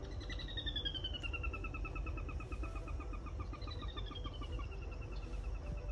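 Recorded sora call played back through a portable speaker: a whinny of rapid notes falling in pitch, heard twice, the second starting a little past halfway.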